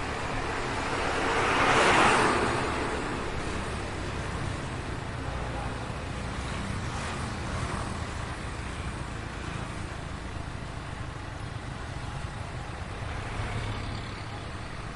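Heavy street traffic heard from a moving taxi: a steady rumble of engines and road noise. About two seconds in, one vehicle passes close, rising and then fading.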